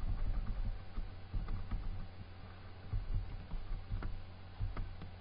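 Computer keyboard keys clicking at an irregular pace as text is typed, over a low steady hum.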